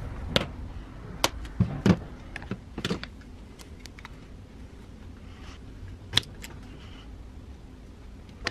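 Scattered sharp clicks and taps of needle-nose pliers against the wires and carbon-brush spring of an opened angle grinder: a cluster in the first three seconds and one more about six seconds in.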